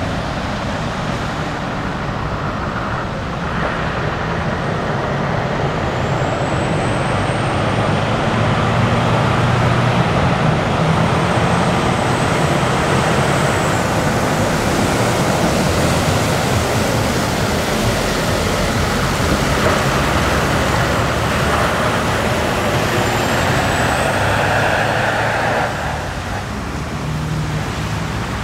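Scania dump truck with a loaded tipper trailer driving past, its diesel engine running under the hiss of tyres on wet asphalt, with other traffic around it. The sound swells as the truck comes closest and eases off near the end, and a faint high whine appears twice.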